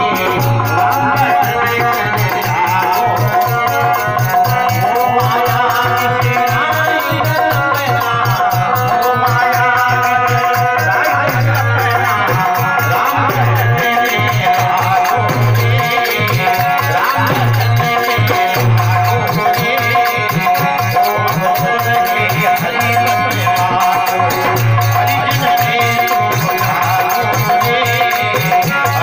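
Live Rajasthani devotional bhajan: a harmonium with a steady held note, a singing voice, and a hand drum beating a rhythm with lighter percussion over it.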